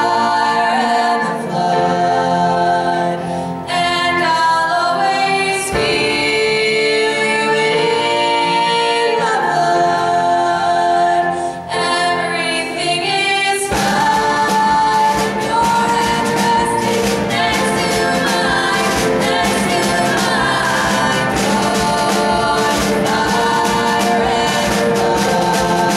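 Three female voices singing in close harmony over a light band accompaniment. About halfway through, the drum kit comes in steadily and the full band plays under the voices.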